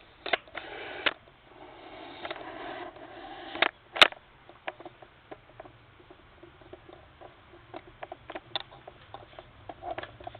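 Handling noise from a camera tripod being adjusted and set up: rustling and scraping in the first few seconds, one sharp click about four seconds in, then a run of small clicks and taps.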